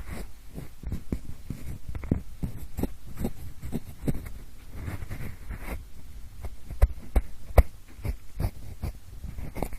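Pencil scratching and tapping close to the microphone in imitation of ear cleaning: irregular rustling, scratchy strokes with scattered light taps, two sharper taps around seven seconds in.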